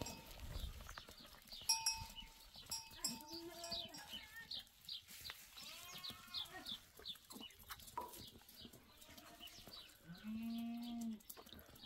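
Goats at a metal barrel trough, with a bell on one of them clanking briefly early on and many small high chirps in the background; near the end one animal gives a single low, steady bleat about a second long.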